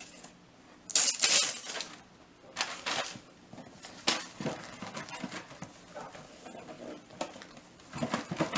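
Gift wrap and packaging rustling and tearing in several short bursts, the loudest about a second in, with smaller crackles after.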